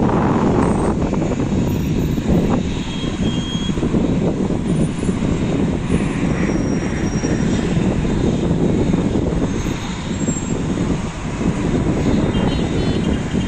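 Helicopter running on the ground, a steady engine and rotor noise, mixed with the hum of motorway traffic.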